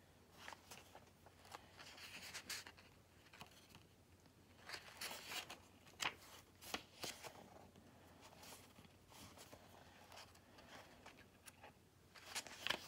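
Pages of a small paperback guidebook being flipped and handled: faint, scattered paper rustles and soft ticks.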